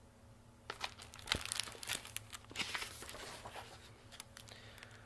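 A picture book being lowered and handled, its paper and cover rustling and crinkling in a run of crackles that starts about a second in.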